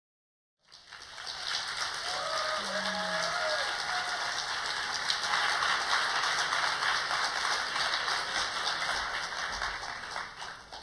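Audience applauding in a large hall, fading out near the end. A voice is briefly heard over the clapping about two to three seconds in.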